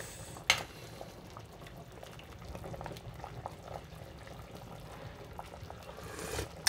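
Pot of pork-rib sinigang soup boiling, a faint steady bubbling with small pops. A sharp click comes about half a second in and another near the end.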